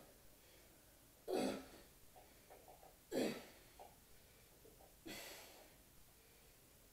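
A man breathing hard while hanging upside down: three strong, forceful breaths about two seconds apart, with quieter breathing between them. He is winded from the effort of climbing into the inverted position.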